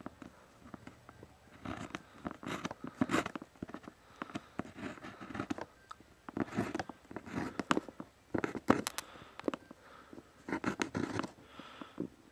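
Small mechanical pencil lead scratching on paper during handwriting, in short spells of quick strokes separated by brief pauses.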